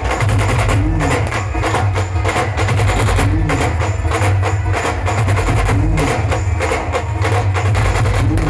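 Dhol-tasha drum ensemble playing a fast, loud groove: rapid sharp tasha strokes over deep dhol beats. A short low rising-and-falling tone comes back about every two and a half seconds.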